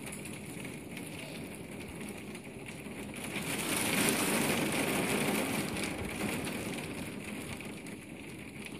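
Rain falling on garden plants, a steady hiss that swells louder about halfway through and then eases off again.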